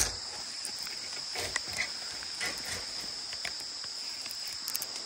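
Insects calling in a steady high-pitched drone, with a few faint scattered clicks and rustles.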